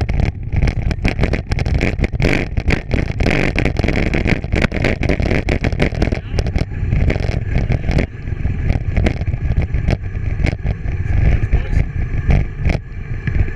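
Bicycle running over rough ground: a steady rumble with frequent rapid rattles and knocks from the bike.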